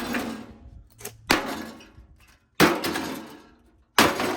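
Heavy blows landing on the gutted shell of a Hamilton Beach P100N30ALS3B microwave, three hard strikes about a second and a half apart. Each strike rattles and clatters briefly as parts shake loose.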